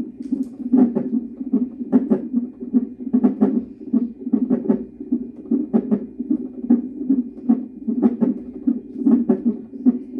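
Fetal heart monitor's Doppler speaker playing an unborn baby's heartbeat as a fast, pulsing whoosh, broken by sharper knocks about once a second: the baby hiccuping in the womb.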